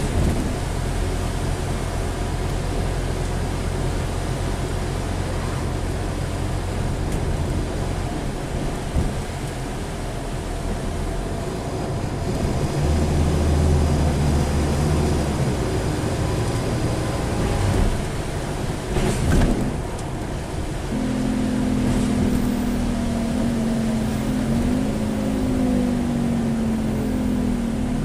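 Scania N230UD double-decker bus's five-cylinder diesel engine and ZF Ecomat five-speed automatic gearbox, heard from inside the bus as it drives. The engine note deepens and grows louder for a few seconds around the middle, a brief knock follows, and from about two-thirds through a strong steady hum sets in with a faint falling whine above it.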